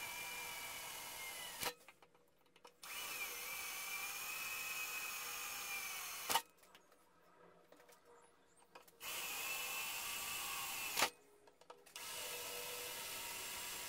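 Cordless drill boring holes through aluminium sheet: a steady motor whine in four runs with short pauses between, each stop ending in a sharp click.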